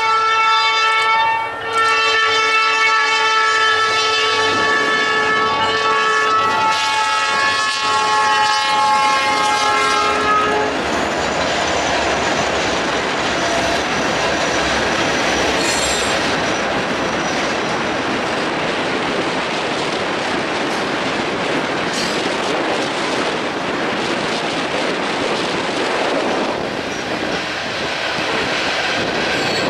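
Lead locomotive's horn sounding a several-note chord for a grade crossing, with a short break about a second and a half in, cutting off about ten seconds in. Then four EMD SD40-2 diesel locomotives and a freight train of covered hoppers and tank cars roll past, the wheels clacking on the rail.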